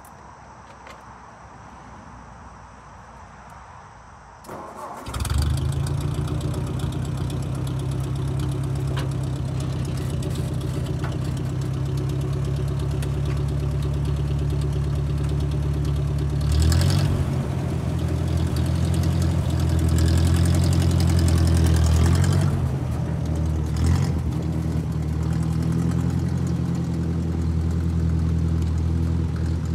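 Ford Workmaster 641 tractor's gasoline four-cylinder engine starting up about five seconds in, then running steadily. There is a clunk about seventeen seconds in, and the engine runs louder for a few seconds as the tractor drives off.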